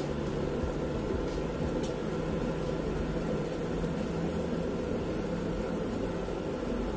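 Wok of mustard greens and white mushrooms simmering under a glass lid: a steady hiss of cooking with a low, even hum from the stove.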